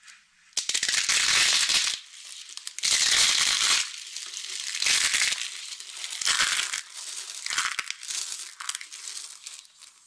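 Dry, brittle soap slices stacked in a spiral being crushed between the hands, giving dense crackling crunches as they snap into shards. The sound comes in several squeezes, and the first two are the loudest.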